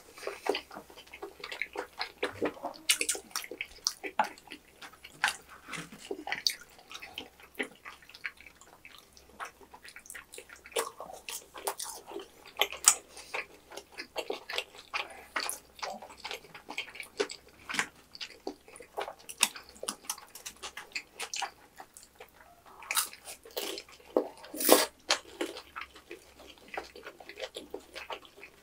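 Close-miked eating sounds of two people chewing mouthfuls of Korean snack food: an irregular run of wet clicks and smacks, with a louder click near the end.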